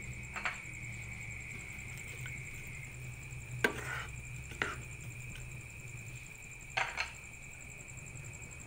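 Wooden spatula knocking against a frying pan about five times while stirring simmering fish and broccoli, the loudest knock a little past the middle, over a steady faint hum.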